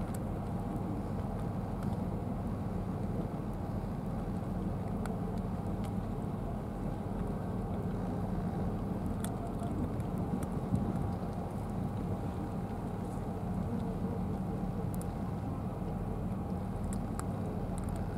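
A steady low rumble, with a few faint, scattered clicks of cats crunching dry kibble from plastic trays.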